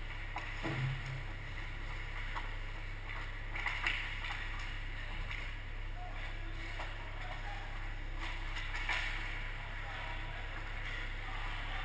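Ice hockey rink ambience: skate blades scraping on the ice in a few short rasps, about 4 and 9 seconds in, over a steady low hum.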